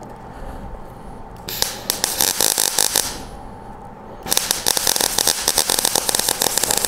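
MIG welder arc crackling as a rosette (plug) weld is laid through a drilled hole in a replacement roof panel into the cab metal beneath, argon-shielded. Two bursts of welding: one starting about a second and a half in and lasting about a second and a half, then a second from about four seconds in to the end.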